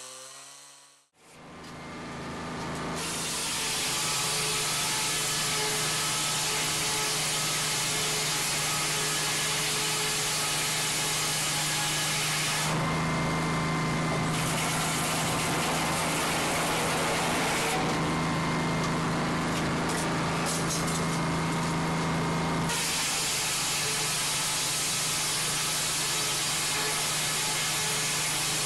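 Chainsaw running steadily at high speed, with a steady engine hum under a loud rushing noise; the sound changes abruptly several times, like cuts between takes.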